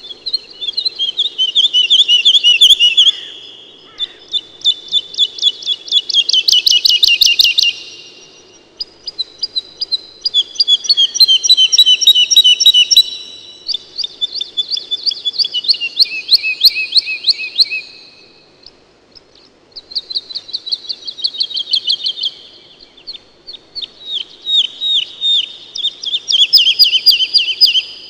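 Songbird singing: about six phrases of fast repeated trilled notes, each two to four seconds long, with short pauses between them.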